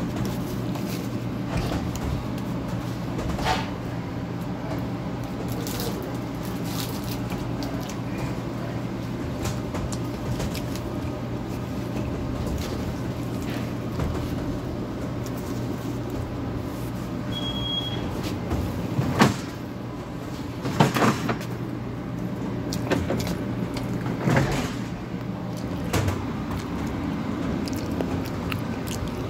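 Steady machine hum running throughout, with a few sharp knocks and handling clatters; the loudest come about nineteen to twenty-one seconds in.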